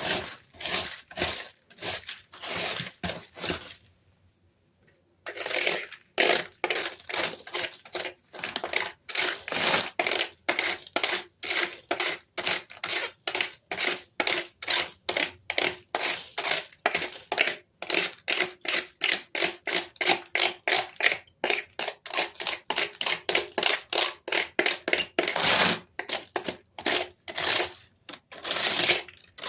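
Plastic keys of a Dell keyboard clicking and clattering during cleaning, a quick run of about three sharp clicks a second that pauses briefly about four seconds in.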